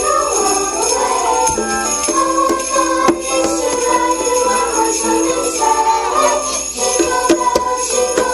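Sleigh bells jingling over music with held, wavering notes.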